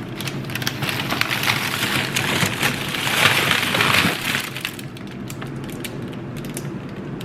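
Crinkly rustling with many small clicks and knocks, loudest about three to four seconds in and settling after about four and a half seconds, as things are shifted about while a dish goes into a freezer.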